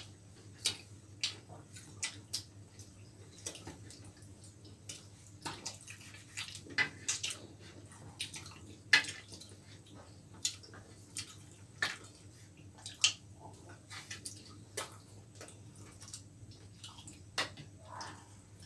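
Eating sounds of people chewing chilli chicken and roti eaten by hand: irregular wet mouth clicks and lip smacks, one or two a second, over a faint steady low hum.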